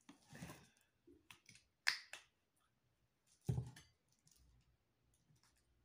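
Plastic water bottle being handled and its screw cap twisted open: a sharp click about two seconds in with a second right after, then a duller knock.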